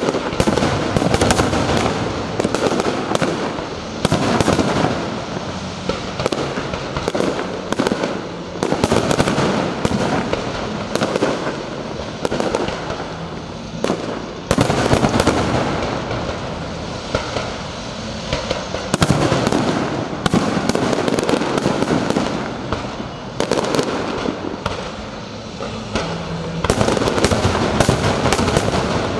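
Fireworks display: a dense stream of overlapping bangs and crackles that swells into loud volleys every few seconds and eases between them.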